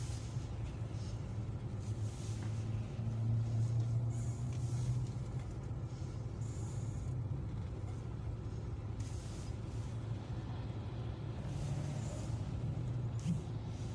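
Car moving slowly in a traffic queue, heard from inside: a steady low engine and road rumble, a little louder about three to five seconds in.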